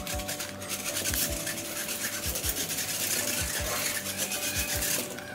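Small electric motors and gear train of a homemade RC car running as it drives across a hard floor, a rasping whirr that stops about five seconds in.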